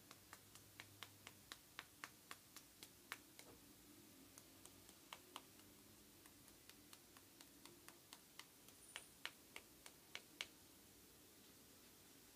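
A cat's mouth and tongue clicking softly as it licks and smacks, a run of about three to four clicks a second at first, then scattered clicks, then another quick run near the end.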